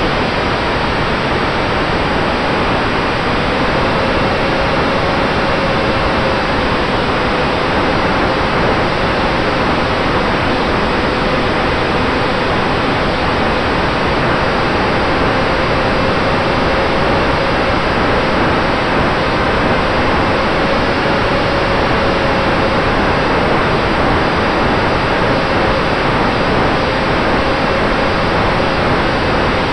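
Steady rush of airflow over a small RC plane in flight, picked up by its onboard camera's microphone. Under it a faint electric motor and propeller whine wavers slightly in pitch.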